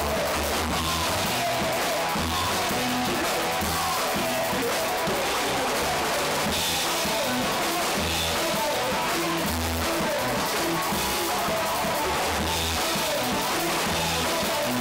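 Post-punk band playing live, the drum kit close up and prominent in the mix over a repeating low bass part.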